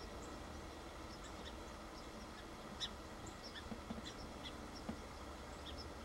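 Faint evening field ambience: scattered short, high chirps and ticks, with one sharper tick near the middle, over a steady hiss and low hum.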